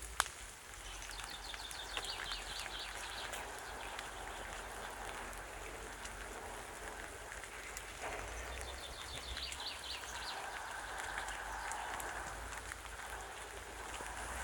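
Bonfire crackling with scattered sharp pops, while a bird sings a quick falling trill twice, a few seconds in and again near two-thirds of the way through.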